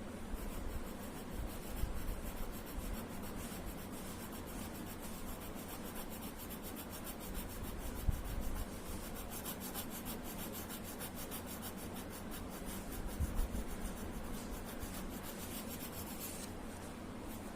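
Rapid back-and-forth shading strokes of a drawing tool scratching on paper, filling in the blank background of a drawing. A few soft knocks come through about two, eight and thirteen seconds in.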